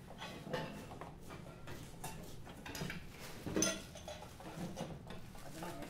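Faint clinks, taps and handling noises from small plates, bowls and utensils on a table while dumplings are folded, with a louder knock about three and a half seconds in.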